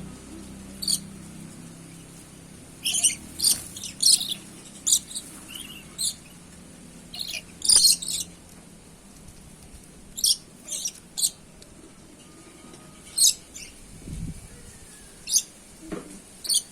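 Lory (nuri parrot) giving short, shrill, very high calls, singly and in quick clusters at irregular intervals, with a low thud about fourteen seconds in.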